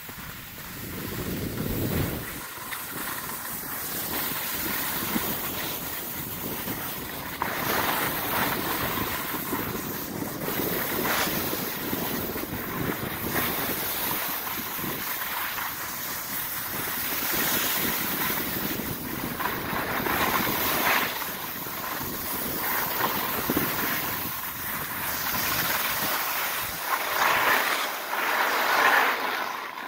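Skis hissing and scraping over packed snow on a downhill run, swelling and easing with each turn, with wind rushing over the microphone.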